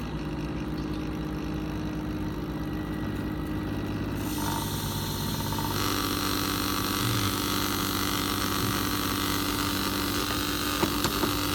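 Pump running steadily with a constant motor hum, its bypass set to 80 psi against about 50 psi back pressure, so the bypass is not engaging. A hiss comes in and grows between about four and six seconds in, and a few light clicks come near the end.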